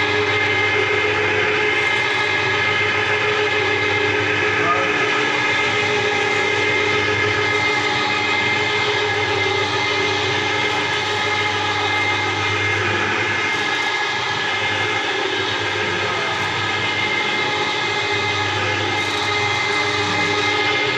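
Sigma mixer with a helical gearbox running under load, its two blades churning a thick paste: a steady mechanical hum with a high-pitched whine.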